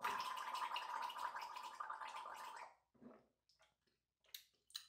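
A man gargling a mouthful of liquid with his head tipped back, a steady bubbling flutter that lasts about two and a half seconds and then stops, followed by a few faint small mouth sounds.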